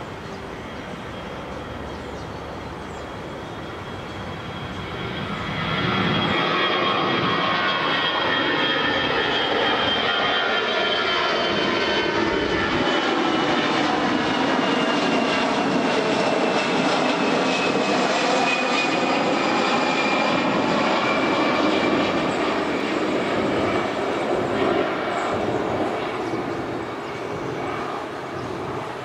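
Airbus A320's twin jet engines at takeoff thrust. The roar swells about six seconds in as the airliner comes past, with a high whine that slides down in pitch. It then fades as the plane climbs away near the end.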